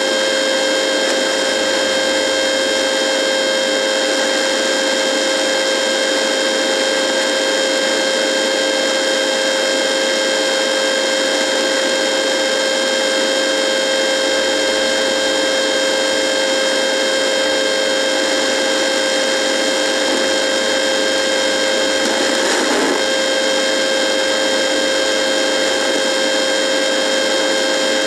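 Radio buzzing: a steady electrical buzz made of many evenly stacked tones over static hiss, with a brief wavering about two-thirds of the way through.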